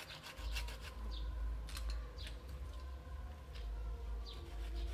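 A hand chisel gouging and scraping into the wood of a red-bud ficus stump, a run of short, irregular strokes over a low rumble.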